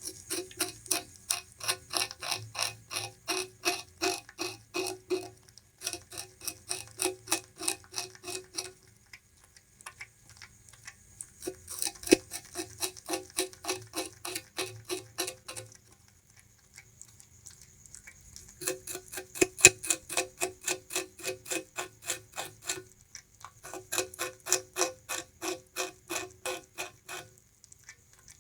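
Bamboo rat chewing sugarcane: fast, regular crunching, about five bites a second, in several bouts of a few seconds each with brief pauses between.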